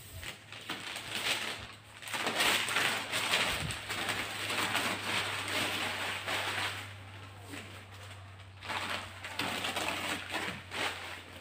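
Masking newspaper being peeled off a car bumper by hand and crumpled, crinkling in two long stretches with a pause about two-thirds of the way through, over a steady low hum.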